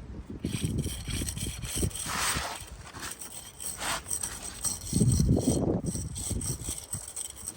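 A steel jointing tool rubbing and scraping along fresh mortar joints in brickwork, in irregular strokes, while the joints are pointed. A louder low rumble comes about five seconds in.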